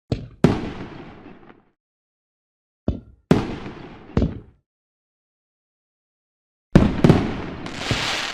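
Fireworks bursting: sharp bangs in three clusters, each trailing off in a fading rumble and crackle. A hissing crackle swells near the end.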